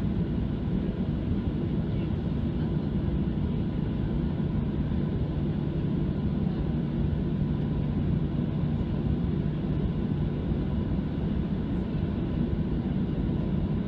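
Boeing 737-700's CFM56-7B jet engines heard from inside the cabin, a steady low drone while the aircraft rolls on the ground.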